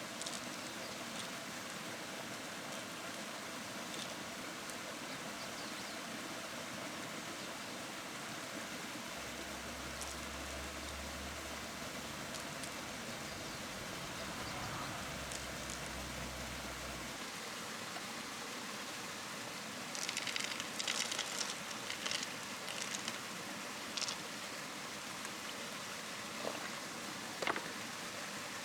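Steady hiss of water, with a cluster of sharp clicks and scratches about two-thirds of the way through and a few more near the end.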